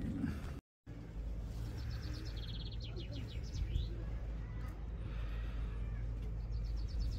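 A small songbird singing a short phrase of quick high notes that runs into a trill, twice, about five seconds apart, over a steady low rumble.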